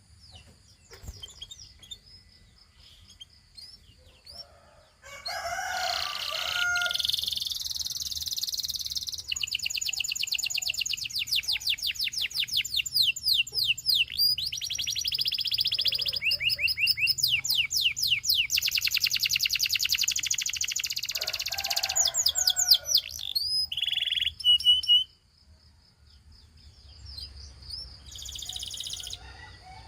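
Gloster canary singing: soft chirps, then from about five seconds in a long, loud song of fast trills of rapidly repeated notes, dropping back to soft chirps near the end.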